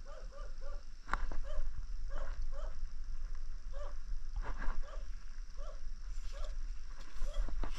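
Short, repeated calls from an animal, coming in quick runs of two to four, about three a second, with a few sharp clicks in between.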